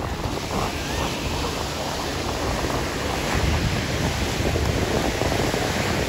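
Ocean surf washing onto a sandy beach, with wind buffeting the microphone.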